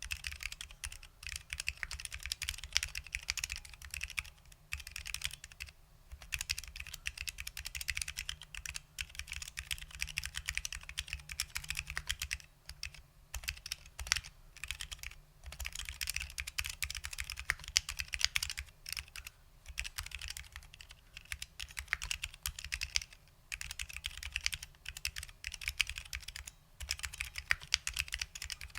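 Continuous fast typing on a custom 60% mechanical keyboard with SKCL Green Alps switches, lubed with dry lube, under OG ABS doubleshot keycaps: a dense run of crisp keystroke clicks with brief pauses now and then.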